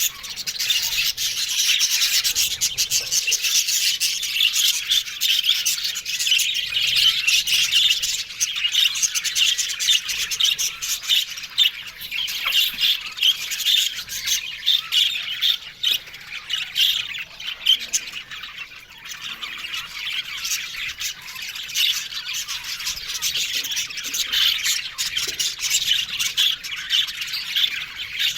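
A flock of budgerigars chattering and squawking together, a dense, continuous mix of many short, high-pitched chirps and squawks.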